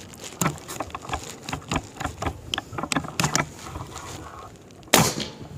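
Clicks and light knocks of a Reximex Throne Gen2 PCP air rifle's action and single-shot loading tray being worked, with the pellet not seating easily in the tray. One loud, sharp sound comes about five seconds in.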